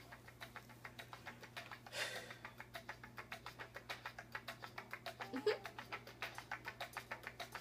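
Faint music with a rapid, even ticking beat, about six ticks a second, over a steady low hum.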